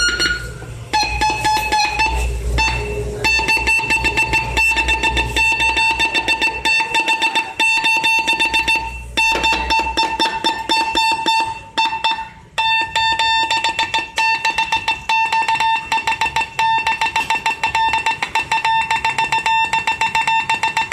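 Morse code beeps: one steady tone keyed rapidly on and off in short and long beeps, with a few brief pauses between runs.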